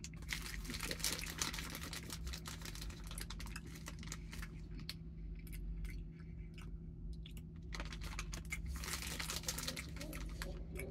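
Foil snack pouch crinkling as fingers rummage in it and pick out fruit snacks: many small crackles, busiest in the first few seconds and again near the end.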